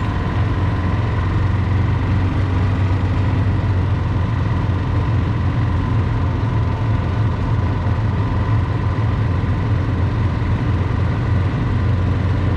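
A small vehicle's engine running steadily while driving along at a constant speed: a low, even drone with a thin steady whine above it.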